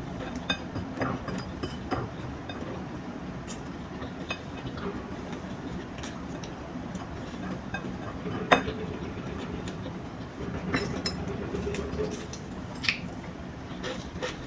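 Close-up eating sounds: chewing and mouth noises as food is eaten by hand, with scattered small clicks and taps of plates, and one sharper click about eight and a half seconds in.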